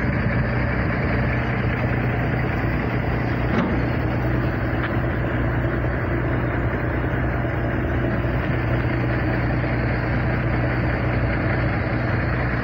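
Freight train rolling through the crossing while pushing a wrecked semi-trailer along, a steady loud rumble with a low drone underneath.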